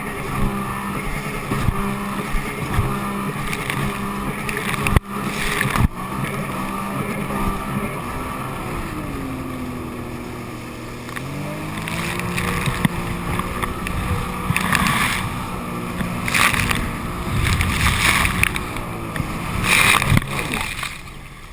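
A 255-horsepower jet ski's engine running at speed, easing off in pitch about nine seconds in and picking back up around twelve seconds. Two sharp knocks come about five and six seconds in, and later water spray hisses in several surges.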